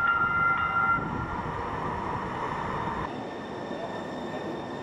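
Link light rail train pulling into the station platform, with a short high signal tone in the first second. The low running rumble drops away about three seconds in as the train comes to a stop.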